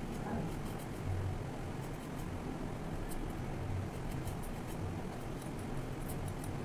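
Light scraping and faint ticking as a vegetable is peeled and cut by hand against a boti, the fixed curved floor blade, over a steady low hum.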